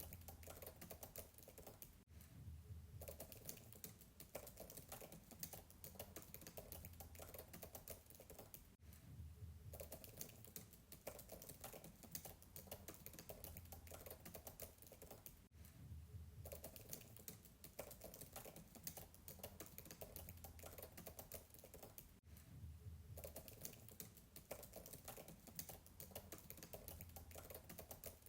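Fast typing on a MacBook keyboard, heard faintly from a distance: a dense, continuous patter of soft key clicks, with a brief break about every six to seven seconds.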